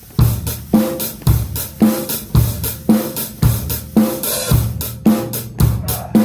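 Drum kit coming in suddenly and keeping a steady rock beat, a bass or snare hit about every half second under hi-hat and cymbals.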